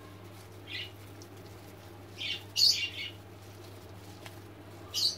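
A bird chirping: a handful of short, high calls, the loudest about halfway through, over a faint steady hum.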